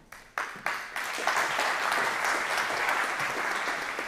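Audience applauding: a few separate claps at first, building to full, steady applause about a second in.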